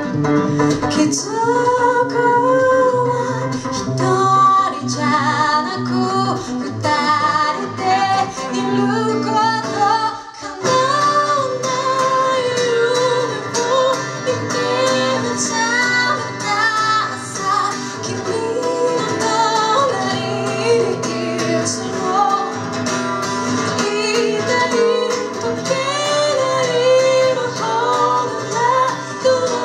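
Live song: a woman singing in Japanese over guitar accompaniment, with a brief break in the sound about ten seconds in.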